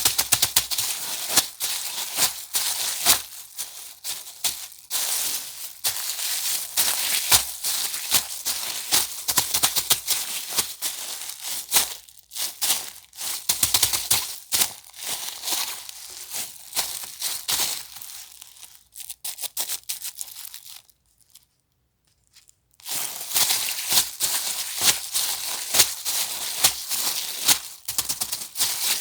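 Thin plastic bag crinkled and crumpled by hand, a dense crackling that breaks off for about two seconds about three quarters of the way in, then starts again.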